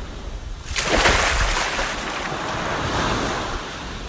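Ocean surf: a wave breaks about a second in with a sudden loud wash, which then slowly ebbs away.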